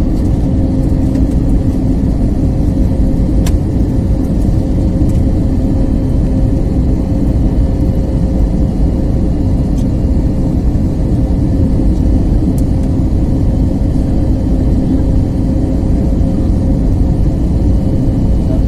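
Steady cabin noise inside an airliner descending on approach: a low rumble of the engines and airflow with a constant hum through it.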